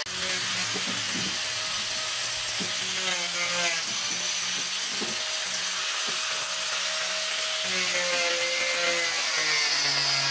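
Handheld angle grinder with a disc grinding into a block of soft wood, running steadily, its motor pitch shifting now and then as the disc is pressed into the wood.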